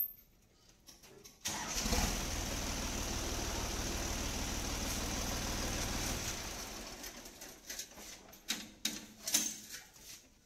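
New Holland tractor's diesel engine starting abruptly, running with a steady low beat for about four seconds, then shut off and dying away. A few short knocks follow near the end.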